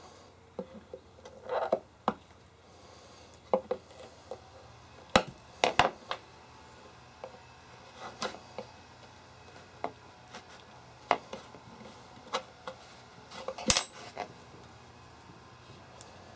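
A small hand tool prying tacks out of the chest's wood: scattered sharp metallic clicks and taps, with a few louder knocks about five seconds in and again near the end.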